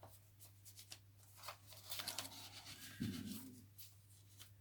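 Paper rustling and soft handling clicks as the card and paper pages of a handmade junk journal are turned and tucked, busiest in the second half with a soft low thump about three seconds in, over a steady low electrical hum.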